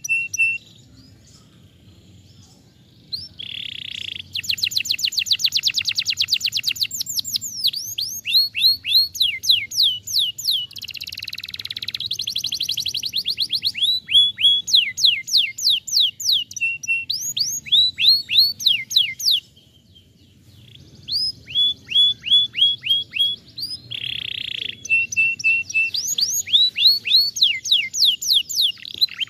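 Domestic canary singing: long phrases of rapid trills and rolls of quickly repeated notes mixed with falling whistled sweeps, broken by two short pauses.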